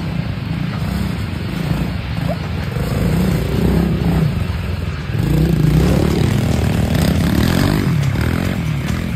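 Small kids' dirt bike engine revving, its pitch rising and falling as the throttle opens and closes, getting louder about halfway through.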